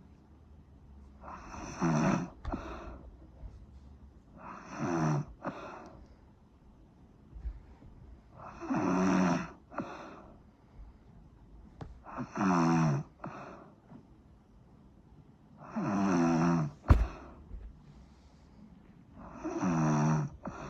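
Snoring: six loud, pitched, rattling snores, one roughly every three and a half seconds, each about a second long and often followed by a short second breath. There is quiet breathing between them, and a single sharp click late on.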